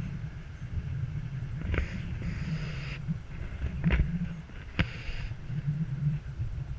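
A car driving on a mountain road, heard through the microphone of a camera mounted outside the car: wind buffets the mic in a low, fluttering rumble over the road noise. Three sharp clicks or knocks come at about two, four and five seconds in, the one near four seconds the loudest.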